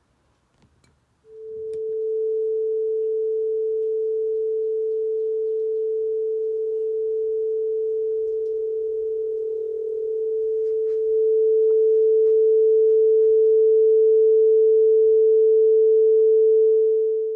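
Television test-pattern tone, the kind broadcast with the Indian Head test card: one steady mid-pitched tone that starts about a second in and holds without change in pitch, getting a little louder about two-thirds of the way through.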